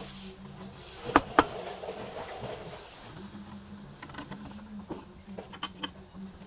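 A log being handled and fixed on a wood lathe: two sharp knocks close together about a second in, then a run of lighter clicks and taps from about four seconds on, over a steady low hum.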